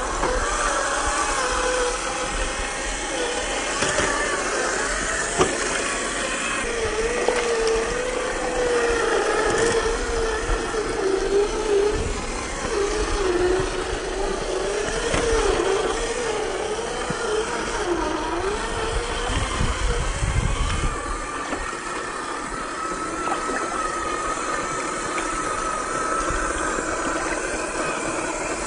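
Electric motor and steel-gear gearbox of an RC scale rock crawler (Xtra Speed XS01, 550 21T brushed motor) whining, its pitch wavering up and down, over a steady hiss of running creek water.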